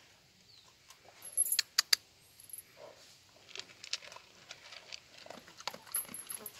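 A chained dog at a metal food bowl of dry kibble, giving short sharp metallic clinks of chain links and bowl and the crunch of kibble being eaten. The clinks are loudest in a quick cluster about one and a half seconds in, then come scattered and lighter.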